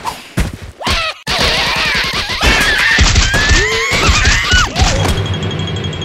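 Cartoon soundtrack: squeaky, wordless character cries sliding up and down in pitch, mixed with several sharp thumps and crashes. It gives way to steady, sustained music about a second before the end.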